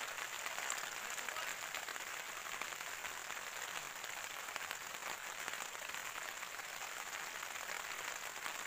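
Steady rain falling, an even pattering hiss with no letup.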